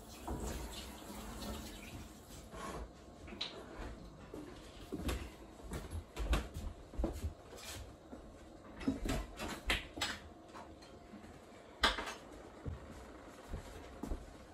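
Glass jars and dishes clinking and knocking at a kitchen sink in irregular, sharp knocks, with water from the tap running at times.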